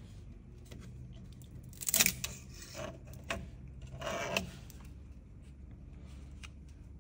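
Hard plastic clicking and rattling as a 3D-printed part is handled against a 3D printer's build plate, loudest about two seconds in, with a few lighter clicks and another rattle around four seconds, over a low steady hum.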